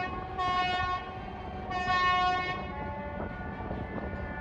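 Tugboat horns sounding together in celebration of the refloated container ship: two loud blasts, each about a second long, over other horns held steady underneath.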